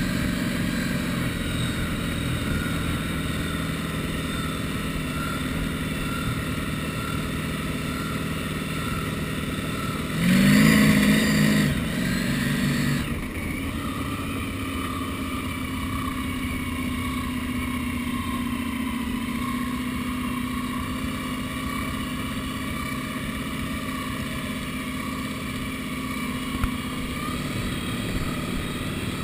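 V-drive inboard boat engine running steadily while the boat is under way. About ten seconds in it surges louder for roughly two and a half seconds, its pitch climbing slightly, then drops back suddenly to the steady run.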